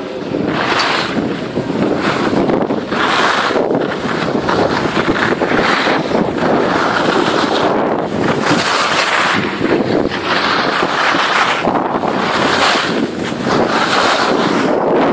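Wind rushing over a helmet-mounted phone's microphone while skiing downhill, mixed with the hiss of skis sliding on snow; the noise swells and eases every second or so.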